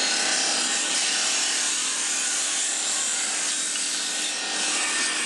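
Steel knife blade being ground against a spinning abrasive wheel: a steady, continuous grinding hiss.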